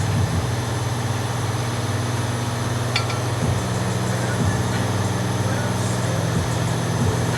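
Steady low machine hum, with a few light metallic clicks as a cotter pin is worked out of a tie rod end with hand tools; the clearest click comes about three seconds in.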